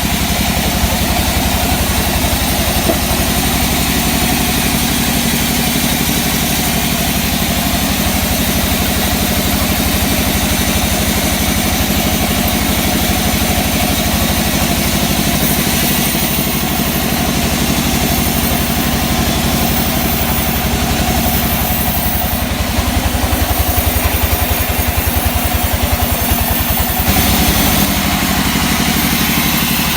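Sawmill machinery running: a steady engine drone under a constant high hiss. The hiss grows stronger for a stretch in the middle and drops back near the end.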